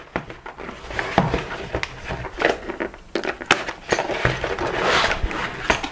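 A small cardboard box being opened and handled by hand: scattered taps and scrapes of the card flaps and contents, with a longer rustle of card or paper near the end.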